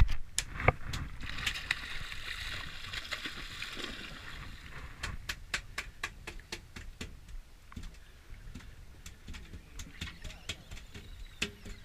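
Water sloshing and splashing against the side of a small aluminium boat, with a couple of hard knocks at the start and scattered sharp clicks from about halfway on.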